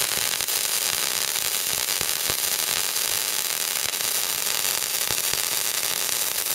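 Flux-core wire-feed welding arc crackling steadily, with a few sharper pops standing out.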